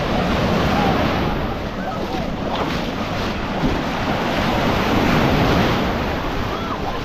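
Baltic Sea surf washing onto the beach, a steady rush that swells twice, with wind buffeting the microphone.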